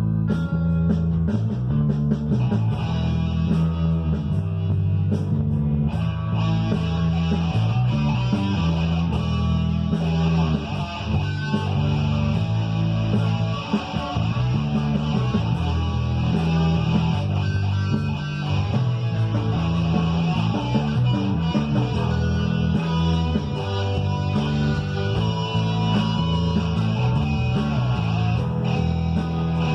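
Electric guitar played over a rock backing track with bass and drums. The sound turns brighter and fuller about six seconds in.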